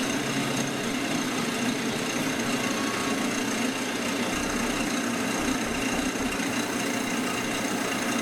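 Wood lathe running steadily, its motor humming at a constant speed as it spins a canvas.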